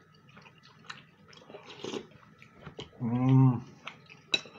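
Close-up eating sounds: a metal spoon clinking against a ceramic bowl of dumplings in broth, with chewing and puffs of breath blowing on the hot spoonful. About three seconds in, a short low hum from a man's voice is the loudest sound.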